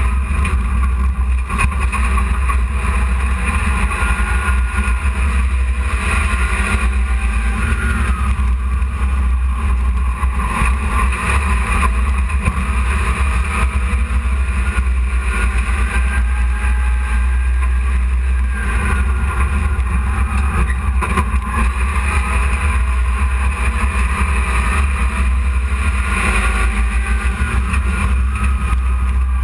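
Dirt-track hobby race truck's engine running loud and steady, heard from inside the cab, with its pitch rising and falling a little as the truck laps the oval.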